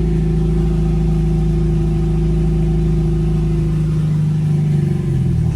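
Honda Civic EK's B18C four-cylinder engine idling steadily just after a cold start. About four seconds in, the idle dips and turns uneven.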